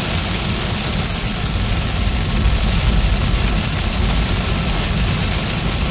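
Heavy rain on a car's roof and windshield, heard from inside the car, with the low rumble of the engine and tyres on the wet road underneath. The noise holds steady throughout.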